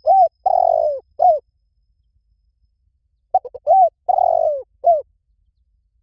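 Spotted dove cooing: two phrases of several short coos, each with a longer middle note, the second phrase starting about three seconds after the first.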